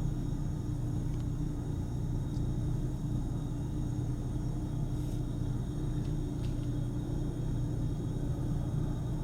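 Jet airliner engines: a steady low rumble with a faint high-pitched whine.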